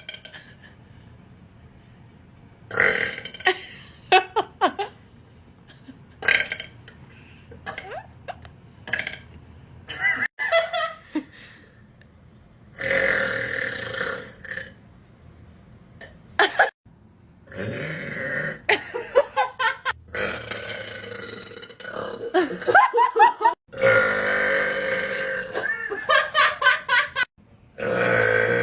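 A person's deep burps, one after another with short pauses between: some short and in quick runs, a few long and drawn out.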